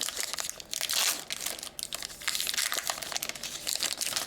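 Hockey card pack wrapper crinkling and tearing as it is ripped open and handled, a dense run of irregular crackles.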